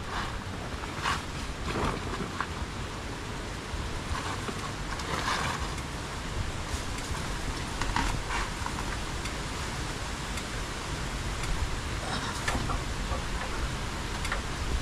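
Plastic sacks rustling and thudding as they are handled and set down in a tricycle's metal cargo bed, a few scattered rustles over a steady low rumble.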